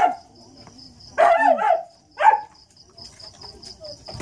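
A dog gives three short, high yelps: one at the start, a longer one a little over a second in, and a short one about two seconds in. Crickets chirp steadily throughout.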